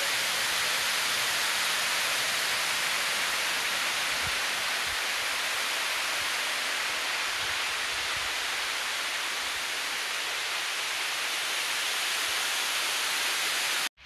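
Steady, loud rushing of water pouring over the face of an overflowing stone masonry dam and churning in the river below. It cuts off abruptly near the end.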